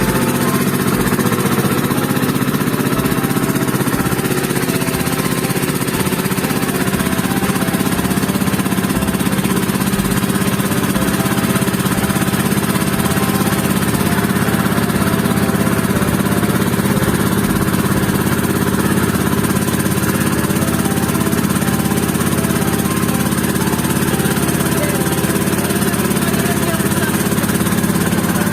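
Small motorboat engine running steadily at a constant speed.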